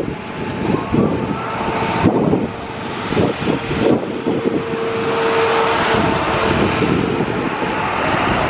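Twin-engine jet airliner's engines running on the runway, a steady rushing noise with a thin whine through the middle, buffeted by gusts of wind on the microphone.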